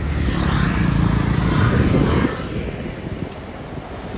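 Rush-hour street traffic: motor scooters passing close by, their engine noise loudest for the first two seconds or so and then easing off.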